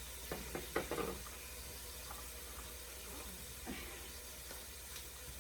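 Vegetables sizzling quietly in a skillet, a faint steady hiss, with a few light clicks of a utensil against the pan in the first second.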